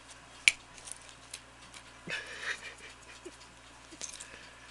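A cat batting at a pocket watch and its metal chain on a bedsheet: scattered small clicks and clinks, with one sharp click about half a second in and a brief breathy rush of noise around two seconds in.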